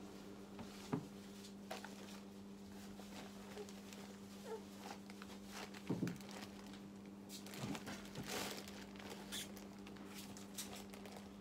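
A steady low hum runs under scattered light knocks and rustles as a toddler handles things in a cardboard box, with a few brief small vocal sounds from the child.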